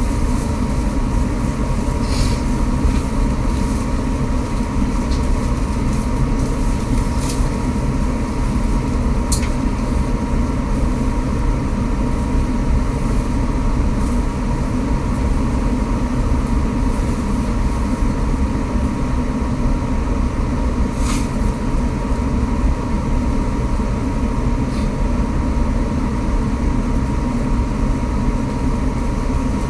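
Running noise of an electric commuter train heard from inside a passenger car: a steady rumble of wheels on rail with a thin steady hum. A few sharp clicks stand out over it, typical of wheels passing rail joints or points.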